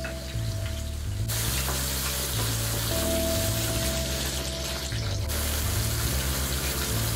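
Cream sauce sizzling and bubbling in a frying pan, much louder from about a second in until about five seconds in, with background music and its stepping bass line throughout.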